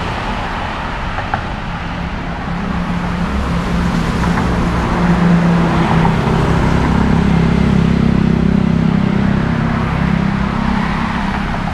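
Road traffic running along a city street, with a vehicle's engine hum growing louder about four seconds in and easing off near the end as it passes close by.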